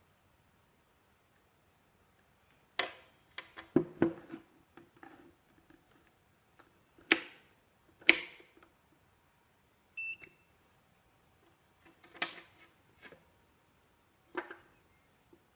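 Several sharp clicks and knocks of hard objects being handled, spread irregularly, with one short electronic beep about ten seconds in.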